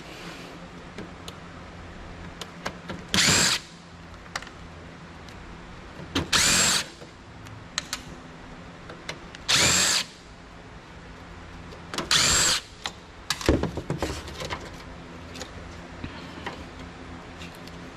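Cordless power drill-driver spinning in about five short bursts of roughly half a second each, some rising in pitch as the motor spins up, backing screws out of a computer case. Small clicks and clatter of parts being handled come in between.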